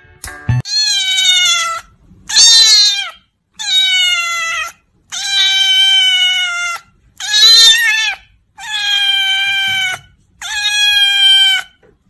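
Orange-and-white cat meowing: seven long, loud meows, one after another with short pauses between.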